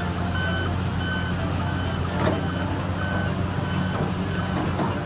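Back-up alarm on heavy earthmoving machinery, beeping steadily about twice a second over a diesel engine running. There is a brief clatter about two seconds in.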